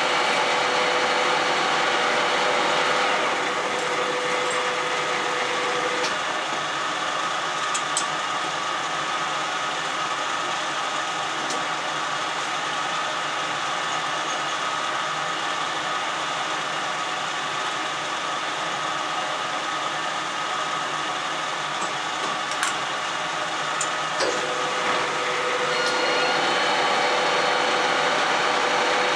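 Manual metal lathe running with a steady gear whine over a constant machine hum. About six seconds in, the whine stops while the hum carries on and the spindle stands still, with a few sharp metallic clicks. Near the end the whine comes back as the spindle starts again.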